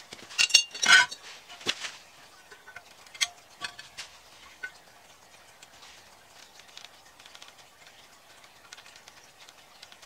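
Hard metal parts clinking and knocking against each other several times in the first second or so, a few more single knocks soon after, then faint scattered taps as they are handled.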